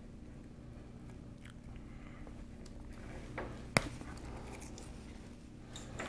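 Faint rustling and small clicks of fingers handling the stripped twisted-pair conductors of a Cat6 cable, with one sharp click a little past halfway, over a steady low hum.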